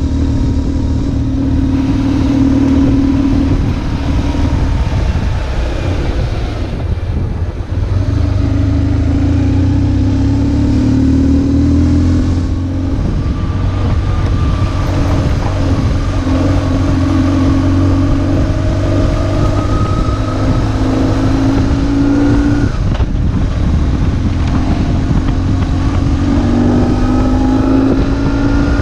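BMW R1150GS's flat-twin boxer engine running under way. Its pitch climbs under throttle and drops back several times as the gears change.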